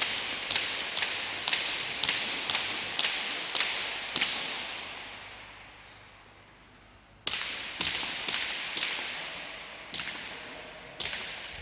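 A hard pelota ball smacking on the frontón in a reverberant court, a sharp crack about every half second. It pauses briefly, then a louder hit about seven seconds in sets off more smacks.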